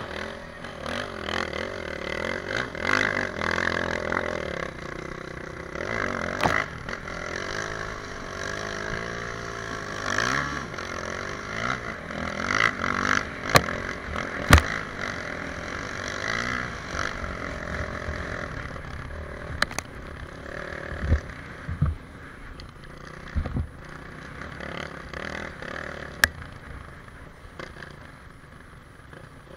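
Motocross motorcycle engine revving up and down as it tows a skier over snow, under a rough scraping of skis on the snow and ice. There are scattered sharp knocks, and the engine sound weakens in the second half.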